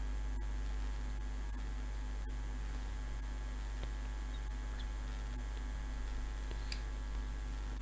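Steady low electrical mains hum with a faint hiss, the noise floor of the microphone setup, with a couple of faint clicks near the end.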